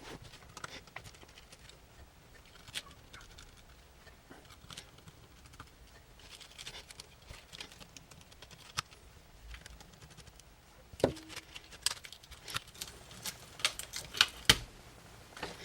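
Small sharp clicks and taps of tools and tiny camera parts being handled while taking apart a Nikon COOLPIX W100 compact camera: scattered at first, then a busier run of clicks from about two thirds of the way in.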